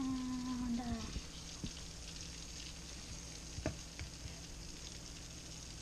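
Flour-dredged redfish pieces sizzling steadily as they fry in hot vegetable oil in a skillet, with a few sharp clicks of tongs about one and a half and four seconds in, and a brief held tone in the first second.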